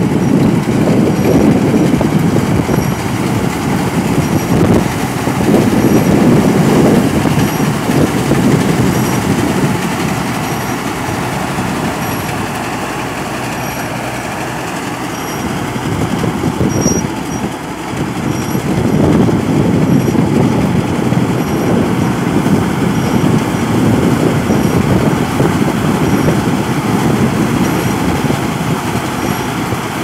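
Hind tracked combine harvester at work, its engine and threshing machinery running in a steady, loud drone. It is quieter for a few seconds about halfway through, then loud again.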